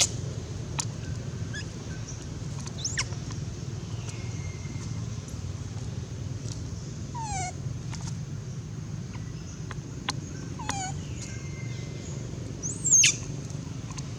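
Baby macaque crying: a few short, high-pitched squealing calls, loud at the start and again near the end, with two falling calls in between, over a steady low rumble.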